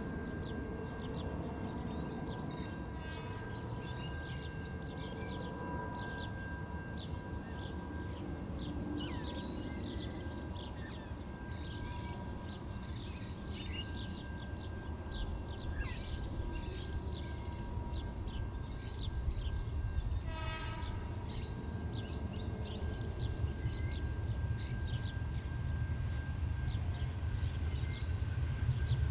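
EL class diesel-electric locomotives running light engine, a low rumble that grows louder as they approach. Birds chirp throughout.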